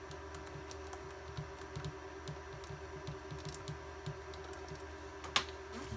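Light, irregular clicks and ticks of a small screwdriver working at tiny screws in the plastic case of an IBM PC110 palmtop, the screws struggling to grab their threads. One louder click comes about five seconds in.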